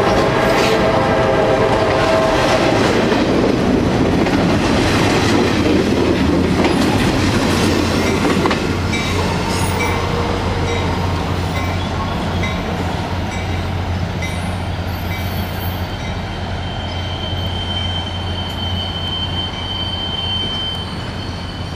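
Double-stack intermodal freight train rolling past close by, wheels clattering on the rails, with a steady pitched tone in the first couple of seconds. The rolling noise dies down after about eight seconds as the last cars go by, leaving a steady low hum.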